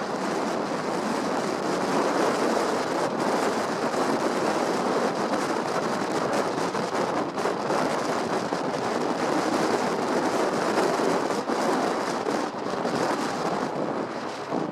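Steady rushing noise of wind on the microphone, even and unbroken.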